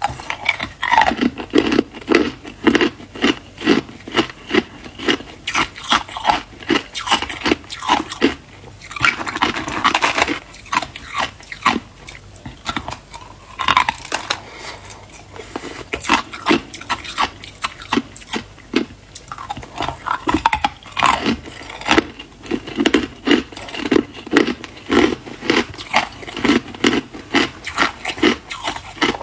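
Hard crushed ice being bitten and chewed close to the microphone: crisp cracking crunches, several a second, with brief lulls between mouthfuls.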